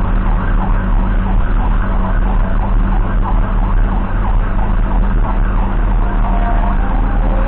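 Emergency vehicle siren in a rapid yelp, sweeping up and down a few times a second. Under it runs the steady low drone of the ambulance's engine and road noise.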